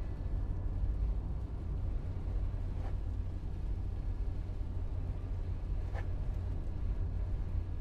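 Car interior road noise while driving: a steady low rumble of engine and tyres, with two faint brief clicks about three seconds apart.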